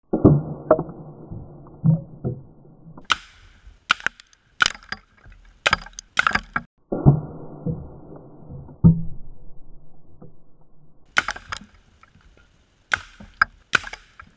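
Suppressed 300 Blackout AR-15 firing a string of subsonic 220-grain rounds into a cinder block, bullets smacking into the block and breaking it apart. Many sharp shots and impacts come in quick succession, in two runs.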